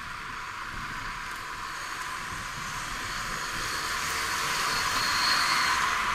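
Passing road traffic: a vehicle's tyre and engine noise swells to its loudest about five seconds in, then begins to fade.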